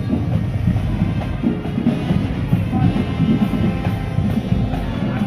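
High school marching band playing, with drums and bass drums to the fore and a steady beat.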